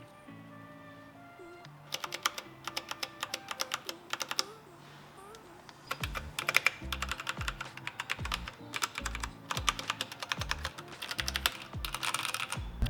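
Keychron K12 mechanical keyboard with Keychron switches and thick keycaps being typed on in fast runs of keystrokes, starting about two seconds in, pausing briefly, then resuming about halfway through. Background music plays underneath.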